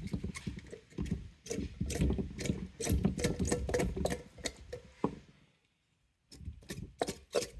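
Fresh green beans being handled and gathered out, a rapid, irregular clatter of small clicks and rustles. It stops for a moment of dead silence a little after five seconds in, then resumes near the end.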